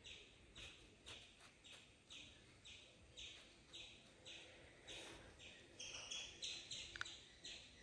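Near silence with faint, regular chirping, about two short chirps a second, that steps up higher in pitch about six seconds in.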